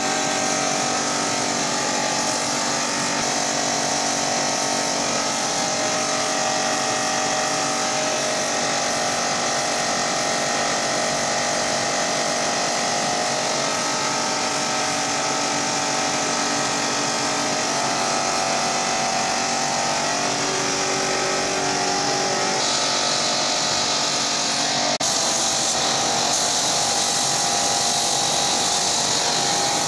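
Air compressor running steadily with a hum of several tones. About two-thirds of the way through a stronger high air hiss joins it: a spray gun spraying clear lacquer.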